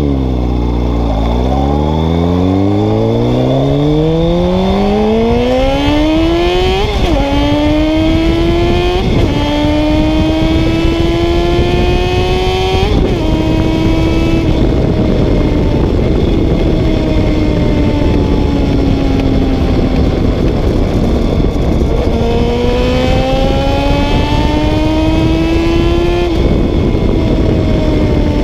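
Honda CBR 600 F3's inline-four engine pulling hard through the gears: the pitch climbs, then drops sharply at each upshift, three in quick succession in the first half. Mid-way the revs ease and slowly fall, then climb again with one more shift near the end, over a steady rush of wind.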